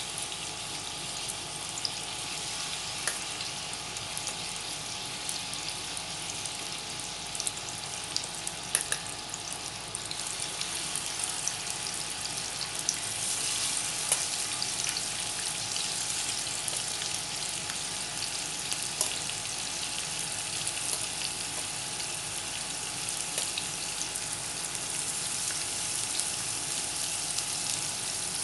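Marinated chicken pieces shallow-frying in a little hot sunflower oil in a pan: a steady sizzle with scattered sharp crackles and pops, growing a little louder about ten seconds in.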